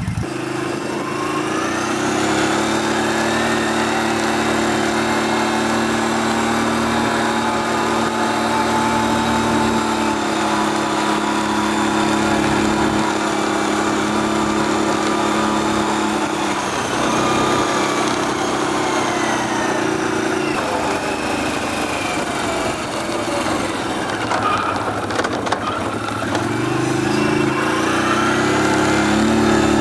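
ATV engine running at a steady cruising speed while the machine is ridden along a gravel dirt road. The engine note drops off briefly a little past halfway and again later, then climbs near the end as it speeds up.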